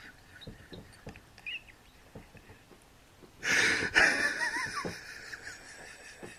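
A man's stifled, wheezy laughter: faint squeaks at first, then a burst of breathy laughing about three and a half seconds in that trails off over the next second or so.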